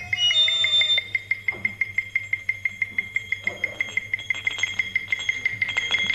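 Small hand-held metal bell struck rapidly and evenly with a beater, about five strokes a second, ringing on one high pitch with a second, higher tone above it. A wavering whistle-like tone dies away about a second in.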